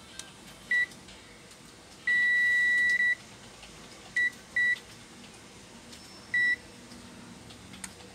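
Digital multimeter's continuity beeper sounding as the probes touch points on the motherboard's CPU fan header circuit: short high beeps and one beep about a second long, each beep showing that the points tested are connected.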